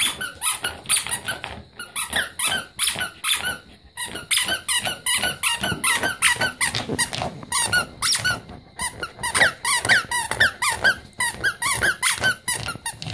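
A squeaky toy trapped under a rug squeaks over and over in short, quick squeaks, several a second, as a Pembroke Welsh Corgi digs and paws at the rug on top of it. Its paws scrape the rug between squeaks, with brief pauses about 4 and 8.5 seconds in.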